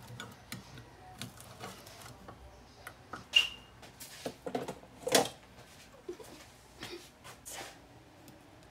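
Hand-held can opener working around the rim of a metal can with faint clicks, then a sharp metallic clink about three and a half seconds in as the lid comes free. Several soft knocks follow as the opened can and its lid are handled and set down on the counter.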